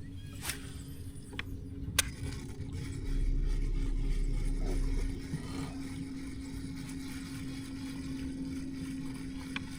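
A boat motor hums steadily at one pitch over a low rumble. A few sharp clicks come in the first two seconds, and the low rumble swells for a couple of seconds about three seconds in.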